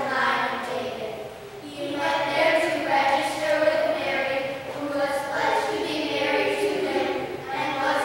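A children's choir singing, in phrases of held notes, with a brief pause between phrases about a second and a half in.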